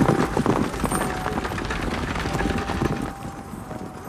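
Horses' hooves clip-clopping as a horse-drawn stagecoach travels, with a thin steady tone coming and going behind; the sound drops in level about three seconds in.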